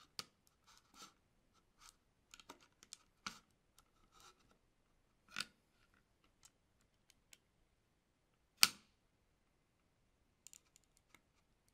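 Scattered small metallic clicks and taps of an Allen key and a flat wrench working the wheel bolts and nuts of a 3D printer's V-track build-plate carriage, loosening the wheels. One sharp click stands out about three quarters of the way through.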